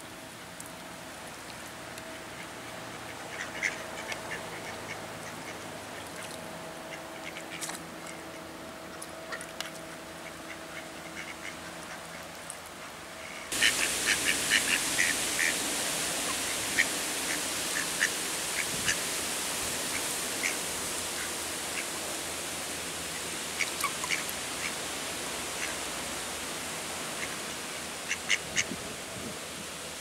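Mallard ducks quacking in short, scattered calls on a pond. About halfway through, a faint steady hum gives way suddenly to a louder steady rush, with quick runs of quacks over it.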